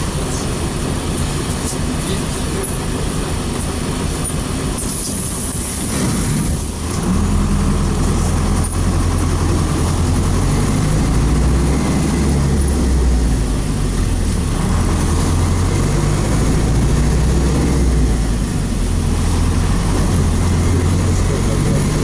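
Inside the cabin of a PAZ-32054 bus on the move: the ZMZ V8 petrol engine drones under steady road and tyre noise. A little past six seconds in, the sound dips briefly and a stronger, deeper engine hum takes over.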